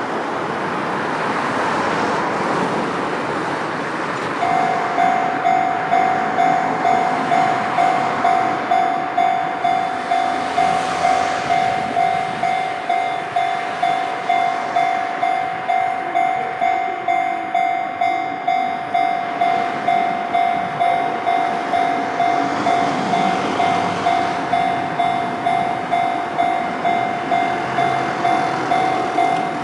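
Japanese level-crossing alarm bell starts about four seconds in and dings steadily, about three times every two seconds, over the running noise of a train.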